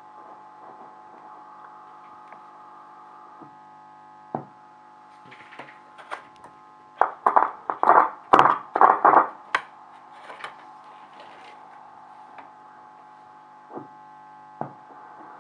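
VE 301 W Volksempfänger tube radio's loudspeaker giving a steady mains hum and hiss while its tuning knob is turned, with no station coming in. A few single clicks, then a burst of loud crackling from about seven to nine and a half seconds in.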